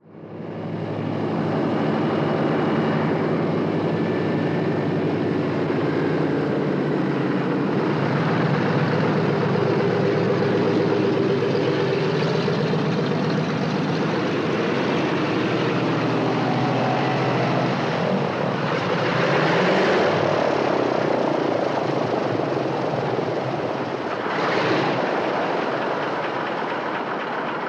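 Airplane engine running steadily. It fades in from silence at the start and swells briefly twice, about two-thirds of the way through and again near the end.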